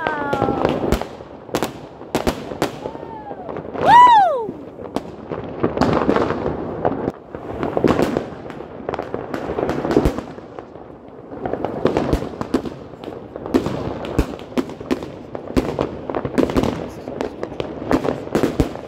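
Fireworks going off: a quick, uneven run of bangs and crackles from rockets bursting overhead, with a whistling firework sliding up and then down in pitch about four seconds in, the loudest moment.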